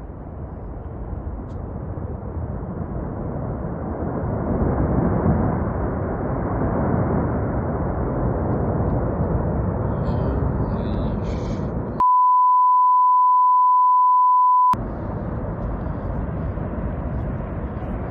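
Glacier-collapse avalanche of ice and snow: a continuous low rushing rumble, loudest about five seconds in. About twelve seconds in it is cut out by a steady one-tone censor bleep lasting nearly three seconds, after which the rumble resumes.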